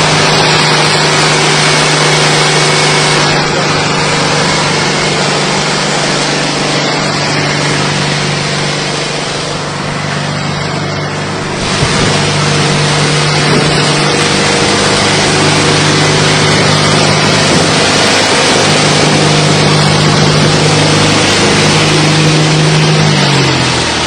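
Snow blower powered by a Citroën 2CV air-cooled flat-twin engine, running steadily under a broad rushing noise. It sounds a bit like a 2CV car. Near the end the engine note falls as it slows down.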